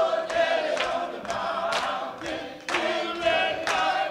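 A choir singing a slow song, the voices holding long notes.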